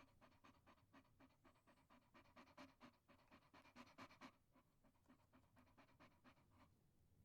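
A dog panting rapidly, quick short breaths at about five a second. The panting weakens after about four seconds and stops shortly before the end.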